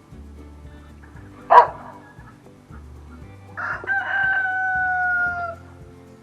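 A rooster crowing once, a long call that sags slightly in pitch over nearly two seconds, in the second half. It follows a single short, loud call about a second and a half in.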